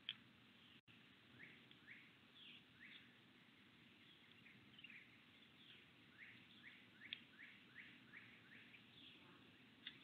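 Faint chirping of wild songbirds at a backyard feeder: a run of short chirps, each sliding down in pitch, a few every second, with a sharp tick at the start and near the end.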